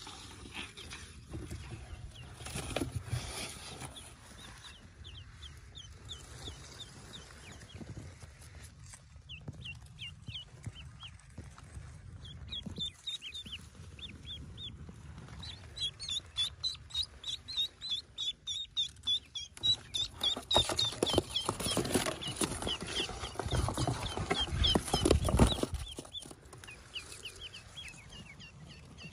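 Newly hatched ducklings peeping: a rapid chorus of short, high cheeps that grows thicker midway. About two-thirds of the way through, a louder rustling lasts several seconds.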